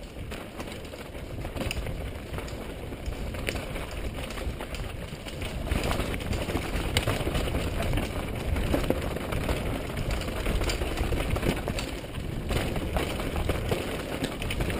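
Wind rumble on a helmet-mounted camera with the rattle and clatter of a mountain bike and its tyres on a dry, dusty dirt trail during a fast descent, getting louder about six seconds in.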